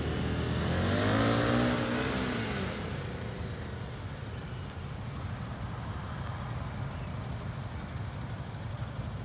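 Motorcycle engine revving up and back down about a second in, then a steady low rumble of motorcycle engines running at low speed.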